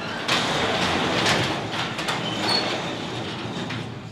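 Bicycle rolling up on pavement and braking to a stop: a rushing tyre-and-wind noise with scattered clicks and a brief high brake squeal about halfway through, fading near the end.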